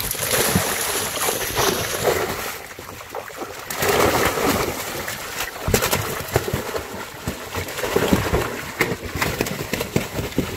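Live fish thrashing and splashing in shallow water held in a tarp, with irregular splashes and slaps.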